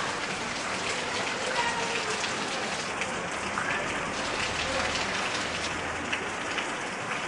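Heavy rain falling on garden leaves: a dense, steady hiss of drops with many single drops ticking close by.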